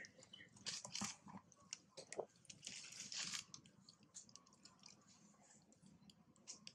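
Faint, irregular crunching and clicking of a monkey chewing food, livelier in the first few seconds and softer after that.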